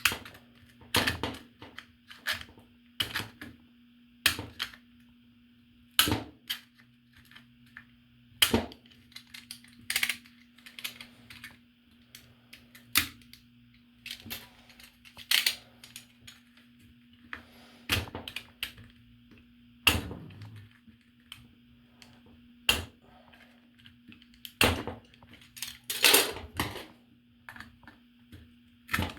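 Hot glue being scraped and picked off a figurine's part: irregular sharp clicks and short scrapes, one every second or two, over a faint steady hum.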